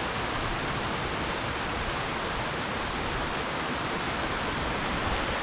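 Snowmelt stream rushing steadily down a rocky avalanche gully, a continuous even wash of water noise.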